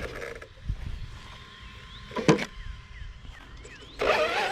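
Arrma Kraton 6S BLX RC truck: two sharp knocks a couple of seconds apart, then near the end its brushless motor spools up with a rising whine as the truck accelerates, on a battery the owner thinks is running low.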